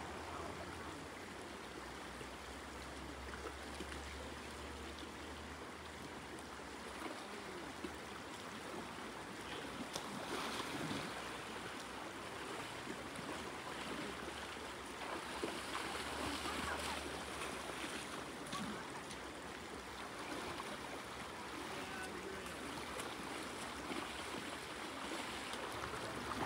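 River current flowing steadily, an even rushing of water.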